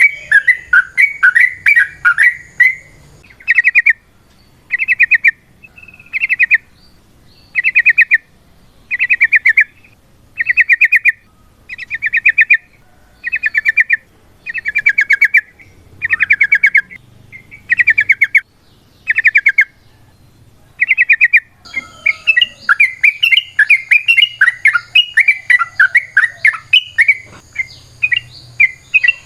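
Yellow-vented bulbul (trucukan) singing. It opens with a fast, busy warble, then gives a long series of short rattling trills about once a second, and breaks back into a rapid, continuous warbling song about two-thirds of the way in.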